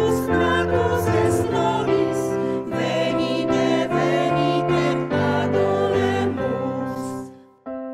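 Women's choir singing a Christmas carol (kolęda) with piano accompaniment. The singing fades out about seven seconds in, and solo piano notes begin just before the end.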